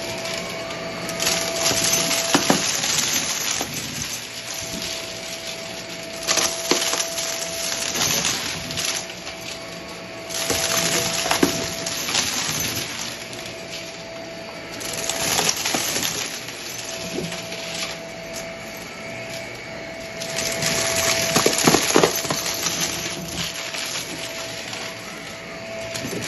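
Shark vacuum cleaner running with a steady motor whine while it is pushed back and forth over carpet. About five louder surges come with the strokes, full of crackling and rattling as small round 'Dippin Dot' beads are sucked up and crunched.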